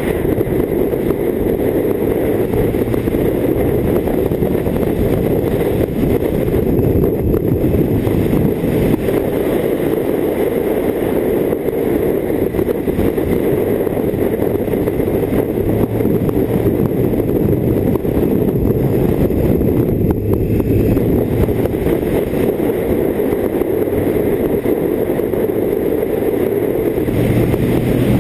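BMW K1600GT inline-six touring motorcycle under way: a steady rush of wind and road noise, with a low engine hum rising out of it at times.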